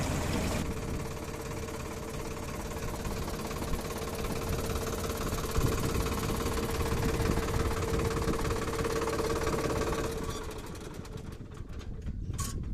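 Tractor engine running steadily with a steady whine, fading away about ten seconds in.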